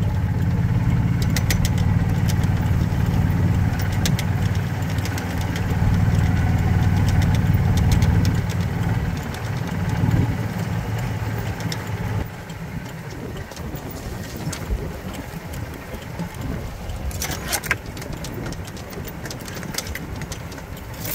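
Engine of a small off-road farm vehicle running steadily as it drives along a rough path, its low hum dropping in level about halfway through as it eases off, with clicks and rattles over it.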